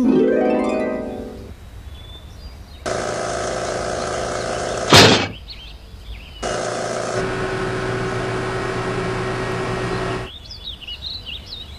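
Cartoon sound effects: a falling tone, then a steady buzzing hum broken by one sharp, loud hit about five seconds in. The hum returns with a steady low note added, and short chirps follow near the end.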